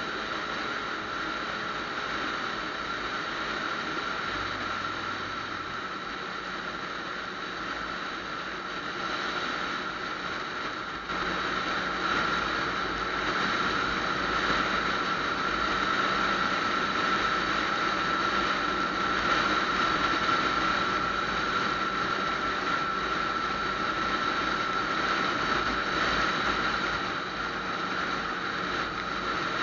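Yamaha FZ-09 motorcycle cruising down a road: steady wind and road noise with the engine running underneath and a steady high whine. It gets louder about eleven seconds in.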